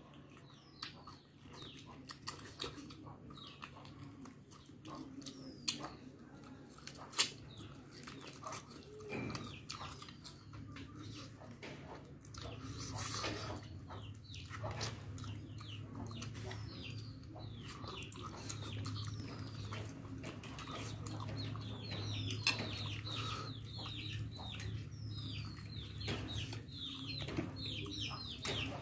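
Chicks peeping in quick falling notes, growing busy and rapid in the last few seconds. Mixed with them are the wet mouth sounds and occasional sharp clicks of someone eating by hand. A low steady hum comes in about ten seconds in.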